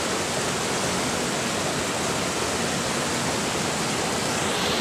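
River water rushing over boulders in a small rapid, loud and steady white-water noise.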